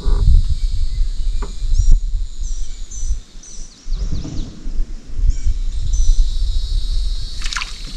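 Wind rumbling on the microphone, easing for a moment partway through, with birds chirping in short high notes and a steady high-pitched buzz behind.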